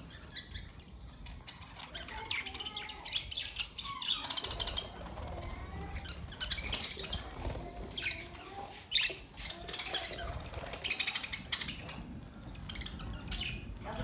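A flock of budgerigars chirping and chattering, many short high calls overlapping in bursts that swell and fade.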